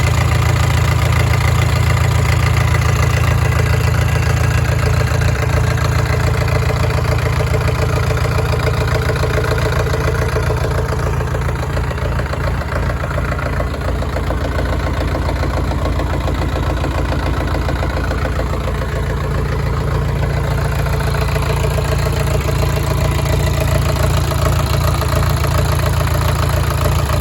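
Yangdong YD480 four-cylinder diesel engine of a brand-new 14 kVA generator set idling steadily. The level dips slightly midway, then comes back up.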